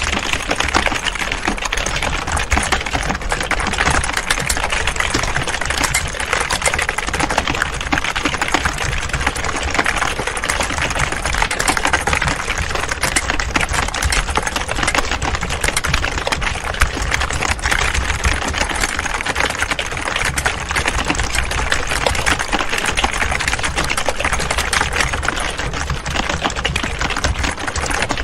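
Many computer keyboards being typed on at once, a dense, continuous clatter of key clicks, with a steady low hum underneath.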